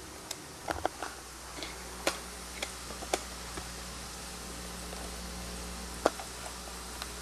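Kitchen utensils making scattered light clicks and knocks against cookware, irregularly spaced, with the sharpest about two seconds in and about six seconds in, over a steady low hum and a faint even hiss.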